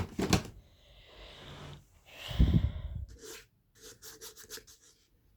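Handling noise from taken-apart speaker parts being moved about: a couple of sharp knocks, a stretch of rubbing, one heavier thud, then a quick run of light clicks.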